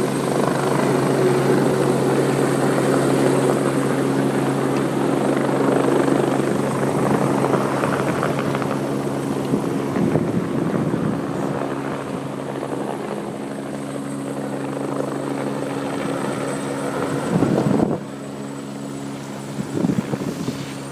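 Rescue helicopter's rotor and turbine running loud and steady at close range, with a few gusts of wind buffeting the microphone. The level drops slightly about eighteen seconds in.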